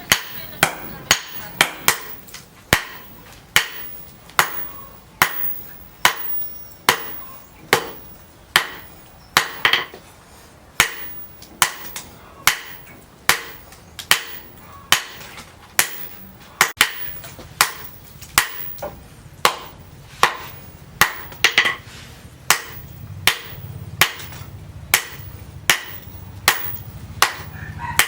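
Hand hammer striking leaf-spring steel on an anvil during forging: steady, evenly spaced ringing blows, about three every two seconds. A low hum comes in about halfway through.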